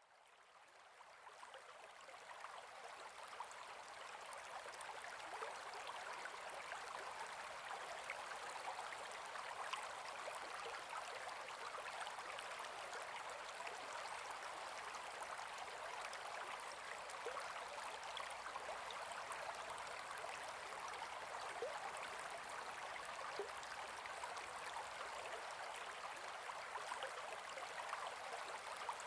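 Gentle forest river flowing: an even rush of water with fine rippling detail, fading in over the first few seconds and then steady.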